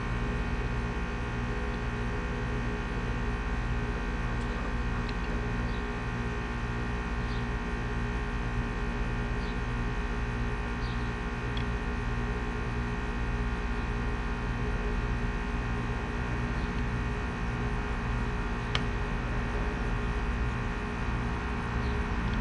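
Air conditioner running: a steady hum with several steady tones and a low throb pulsing about twice a second, with a few faint ticks scattered through it.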